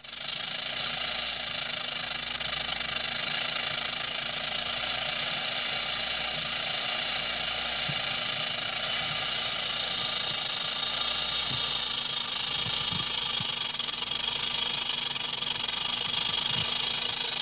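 A snake's loud, continuous buzzing hiss, steady throughout, with a faint low pulsing underneath.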